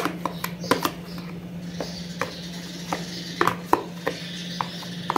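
Metal spoon scraping and knocking against a plastic container as a soft, creamy mixture is scooped out into a plastic bowl: a string of irregular light clicks and scrapes over a steady low hum.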